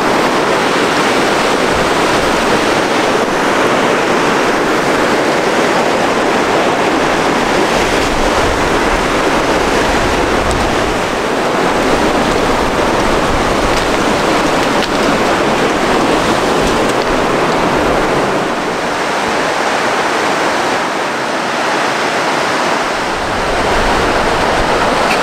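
Whitewater river rapids rushing below a footbridge, a loud, steady wash of water noise.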